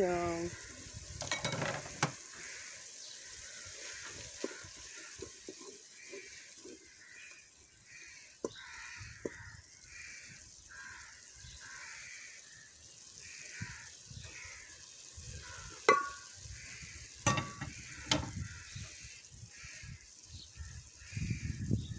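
Chopped tomatoes and coriander sizzling in a metal pot as a wooden spoon stirs and scrapes through them. A few sharp knocks come a little past the two-thirds mark.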